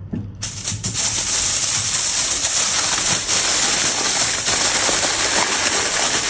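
Aluminium foil crinkling and crackling as it is wrapped around potatoes, starting about half a second in and continuing as a dense, steady crackle.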